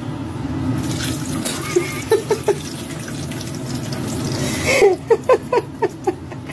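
Liquid running and splashing into a kitchen sink as caramel syrup floods off the plate of a turned-out flan. A few short, pitched sounds come about five seconds in.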